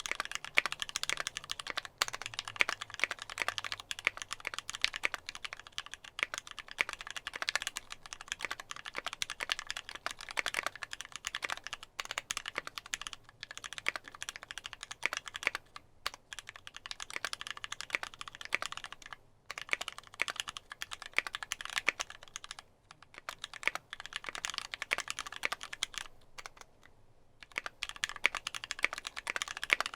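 Continuous typing on a mechanical keyboard with lubed Gateron Ink linear switches (ThicThock MP 68 springs) on an aluminium plate with GMK keycaps: a dense run of keystrokes broken by a few brief pauses.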